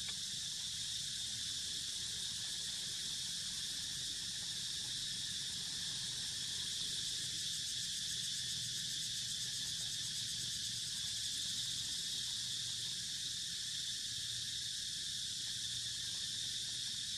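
Steady, high-pitched chorus of insects buzzing without a break, over a faint low outdoor rumble.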